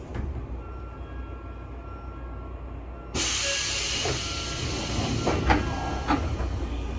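Sotetsu 9000 series commuter train's air-operated doors opening at a station stop: a sudden loud hiss of compressed air about three seconds in, with two sharp knocks a little later, over the low hum of the stopped train.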